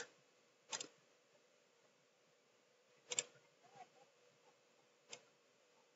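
Near silence: quiet room tone broken by three faint, short clicks, one just under a second in, one a little after three seconds and one about five seconds in.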